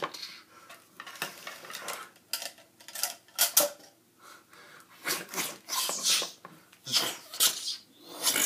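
Plastic action figures being handled and knocked together: irregular clicks, clacks and short scrapes.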